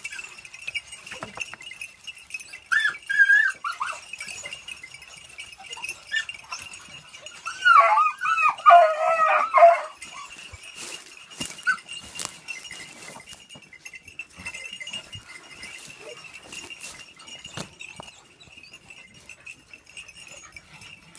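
A pack of beagles baying while hunting rabbit. A brief outburst of cries comes about three seconds in, then a louder chorus of several hounds for about two seconds near the middle.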